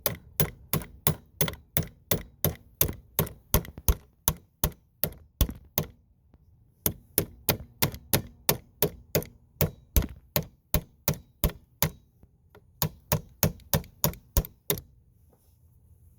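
Rapid repeated hammering strikes, about three a second, in three runs with short pauses about 6 and 12 seconds in: a battery terminal clamp being beaten down onto a truck battery post.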